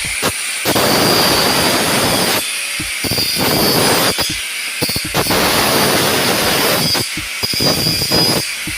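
Power tool cutting into a metal cable tray, in about five bursts of one to two seconds with short pauses between them, a high-pitched whine running through each burst.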